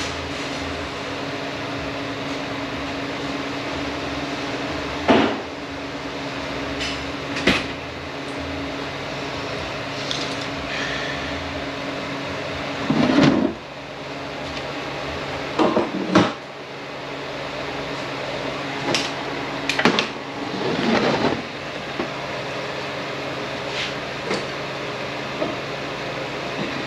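Scattered metal clunks and knocks from aluminium transmission case parts being handled and set down on a sheet-metal workbench, the loudest about halfway through, over a steady workshop fan hum.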